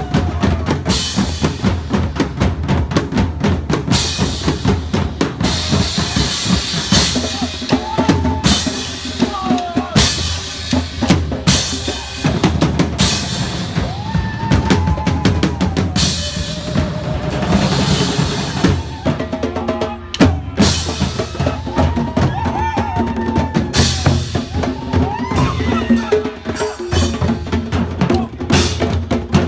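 Loud drum-heavy music with a fast, driving beat of bass drum and snare, with a few rising-and-falling pitched sounds over it.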